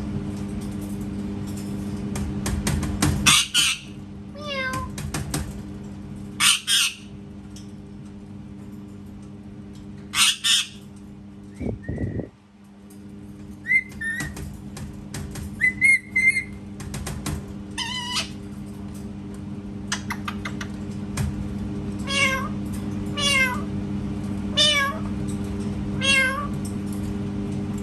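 Parrot imitating a cat's meow, in a string of short falling, wavering meow-like calls, mixed with a few harsh squawks.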